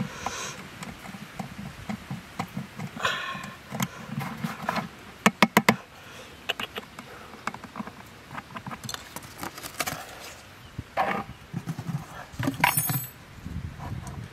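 Small knife cutting and scraping the rim of an old plastic bucket, with scattered clicks and taps of handling. A quick run of four sharp clicks about five seconds in is the loudest part, and a corrugated cardboard disc is pushed into the bucket near the end.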